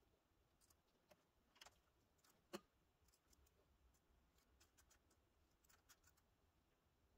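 Near silence, with a few faint metallic clicks of hand tools against the engine's valve rocker arm and adjuster during a valve lash adjustment. The clearest click is about two and a half seconds in.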